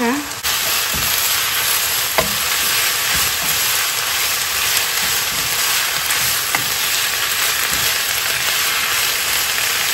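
Chicken, ginger, mushrooms and onion sizzling steadily in a hot non-stick wok, with a spatula stirring them and knocking against the pan now and then.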